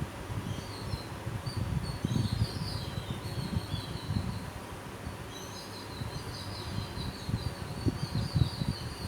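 Small birds chirping in quick, repeated high calls, over an uneven low rumbling background noise.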